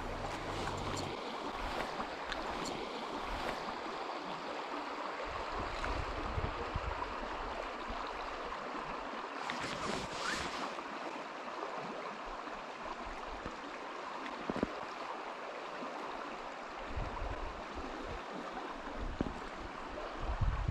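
Steady rush of a small river running over a shallow gravel bed, with wind buffeting the microphone now and then.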